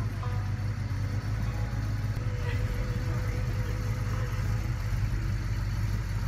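A car engine idling steadily, a low even hum.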